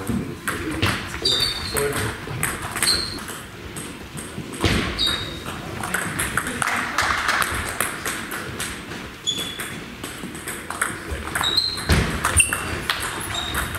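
Table tennis rally: the ball clicks off the bats and the table in quick irregular succession. There is one sharper, louder hit about twelve seconds in.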